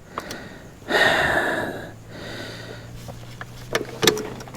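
A loud breathy exhale of effort about a second in, then a few light metal clicks of a wrench working a bolt, over a low steady hum.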